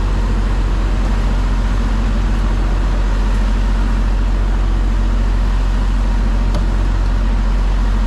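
Diesel engine idling with a steady, even low hum that never changes.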